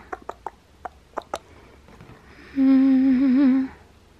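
A woman hums one held note about two and a half seconds in, wavering near its end, after a handful of light taps and clicks of fingers on a cardboard advent calendar.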